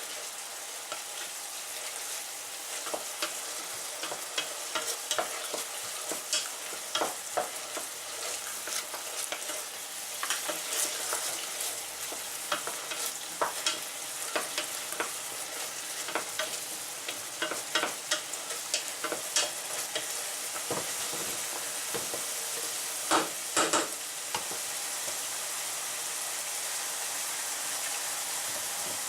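Sliced mushrooms and chopped onion sizzling steadily in oil and soy sauce in a frying pan, with a utensil stirring and knocking against the pan in frequent short clicks, a few louder knocks about three-quarters of the way through.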